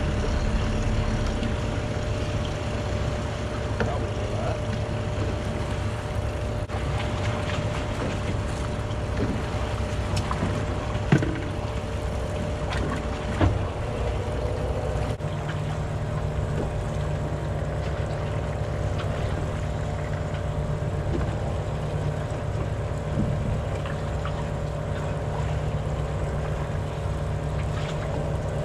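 Motorboat engine running steadily as a low drone, with a deeper hum that grows stronger about halfway through. Two short knocks sound in the middle.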